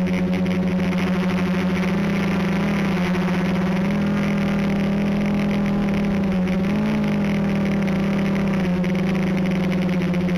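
Quadcopter's brushless motors and propellers whirring as a steady hum, the pitch dipping and rising a few times.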